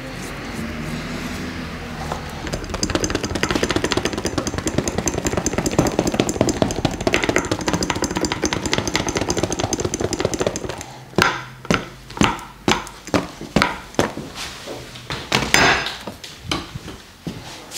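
Percussive massage on a seated person's back and shoulders: a fast, continuous pattering of hits for several seconds, then about a second before halfway through it changes to slower, separate strikes, roughly one or two a second.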